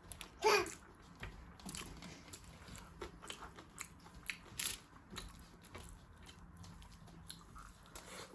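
Close-up eating sounds: biting and chewing food with small wet clicks and crunches. A brief high falling sound about half a second in is the loudest moment.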